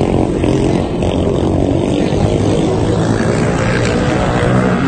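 Motorcycle engines running steadily as bikes race round a dirt oval track.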